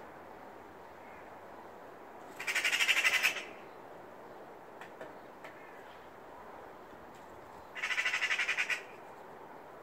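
Eurasian magpie giving its harsh rattling alarm chatter twice, each a fast run of 'chak' notes lasting about a second, the second rattle coming about five seconds after the first: the call magpies use when mobbing a cat.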